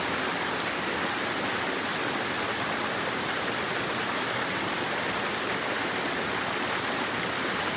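Steady rushing of flowing water, like a stream or small waterfall, even and unbroken.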